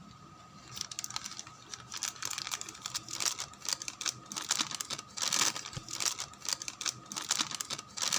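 Packaging crinkling and rustling as it is handled, in quick irregular crackles.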